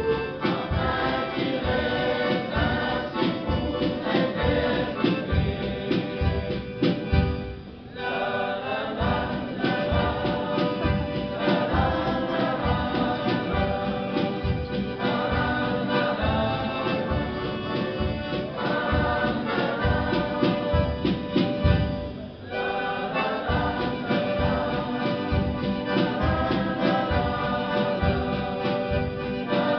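Junior yodel choir singing a folk song together with accordion accompaniment over a steady beat. The music breaks off briefly twice, about 8 and 22 seconds in, between phrases.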